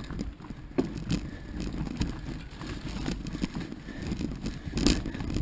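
Mountain bike rolling over gravel and onto a dirt forest trail: a steady low rumble of tyres and rattling from the bike, with sharp knocks from bumps about a second in and near the end.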